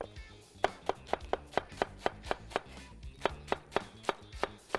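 Cleaver chopping lettuce on a plastic cutting board: quick, even strokes at about four or five a second, with a short pause about three seconds in.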